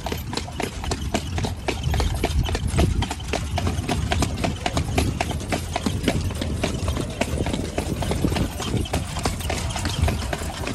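A carriage horse's hooves clip-clopping steadily on an asphalt road as it pulls the carriage, with a low rumble underneath.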